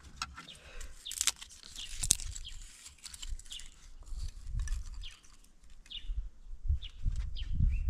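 Small sticks and dry grass clicking and rustling as they are handled and arranged in a jiko, with dull low knocks, while birds give short chirps every second or so.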